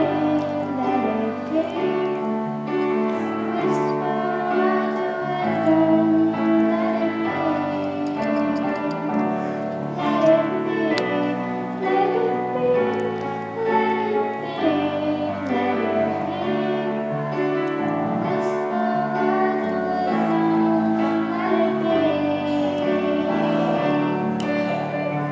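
Music: piano accompaniment with a young singer's voice.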